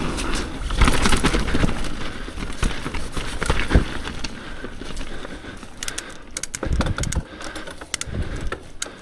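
Mountain bike riding down a rough trail, heard close on a mounted action camera: tyres over dirt and roots, with the chain and frame rattling and sharp knocks from bumps. It grows quieter toward the end.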